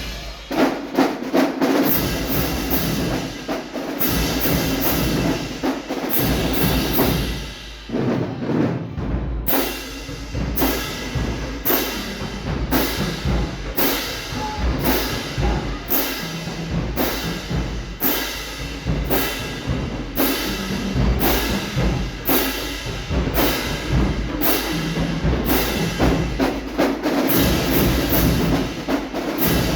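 Marching band playing, with drums and percussion keeping a steady, driving beat over sustained lower notes.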